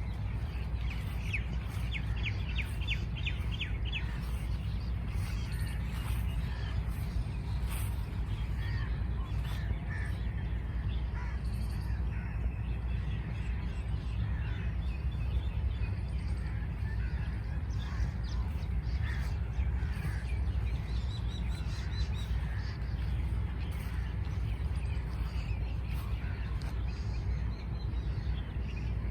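Several wild birds chirping and calling on and off, with a fast trill of quickly repeated notes about a second in, over a steady low rumble of outdoor background noise.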